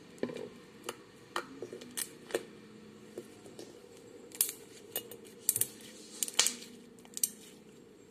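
Fluffy slime made from white glue and shaving cream being kneaded and stretched by hand, giving irregular sharp little pops and clicks, about a dozen of them, the loudest in the second half.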